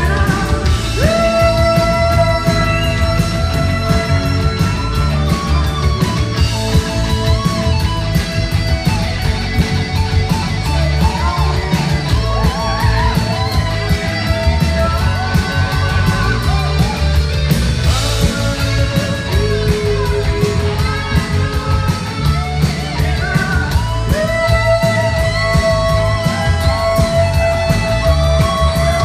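Live rock band playing a song: guitars over bass and drums, with long held notes near the start and again near the end.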